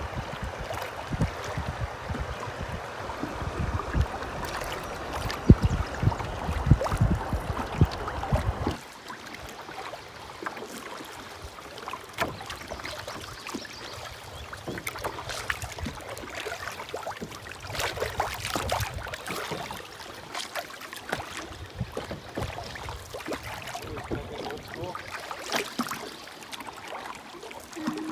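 River water lapping and splashing around a paddled canoe, with short splashes of paddle strokes. For the first eight or nine seconds wind rumbles on the microphone; then it cuts off abruptly and the water sounds go on quieter.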